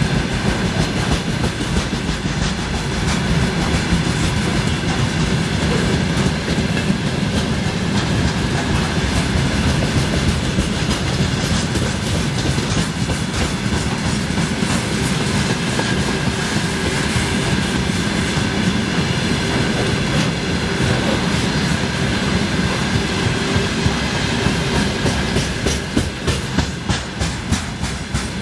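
Railway tank wagons of a freight train rolling past, their wheels clattering steadily over the rail joints in a continuous clickety-clack. Near the end the clatter turns into distinct, evenly spaced beats.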